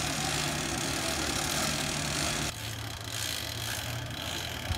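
An engine idling with a steady low hum. About halfway through, the hum settles a little lower in pitch and the background hiss lessens.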